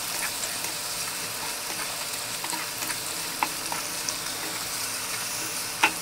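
Sliced onions frying in oil in a nonstick wok: a steady sizzle while a wooden spatula stirs them, with scattered light scrapes and clicks of the spatula on the pan and one louder knock near the end. The onions are being softened in the hot oil, not yet browned.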